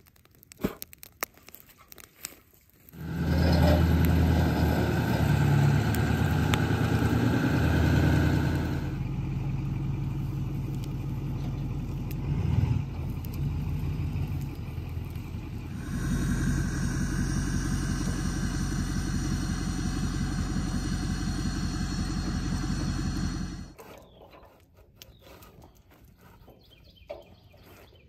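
A vehicle engine running steadily. Its pitch and level shift abruptly about 9 and 16 seconds in, and it cuts off suddenly near the end.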